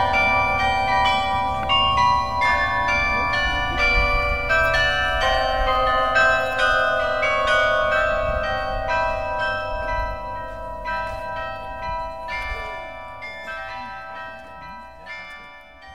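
49-bell carillon playing a tune, each struck bell ringing on under the next notes. The sound fades steadily toward the end.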